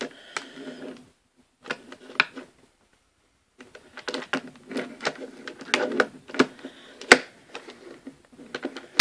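Plastic Rubik's Cube being handled and turned in the hand, clicking and clattering in short runs with brief pauses, and one sharp click about seven seconds in.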